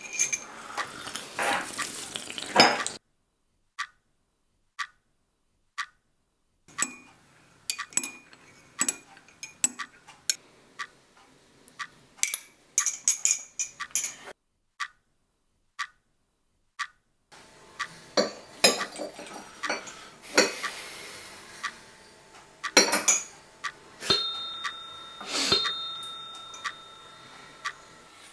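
Porcelain coffee cups clinking against saucers and tableware, in scattered sharp clinks and taps broken by stretches of dead silence. A faint steady high tone runs through the last few seconds.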